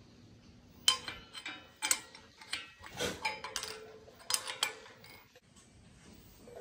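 Steel bracing plate clinking and scraping against a steel front diff housing as it is held in place for a fit check: a string of sharp metallic clinks, some ringing briefly.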